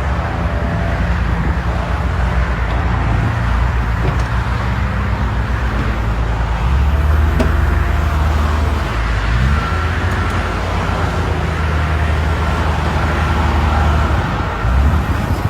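Diesel engines of heavy construction machinery running steadily, with one brief rev about nine seconds in. A faint, evenly spaced high beeping runs through the second half.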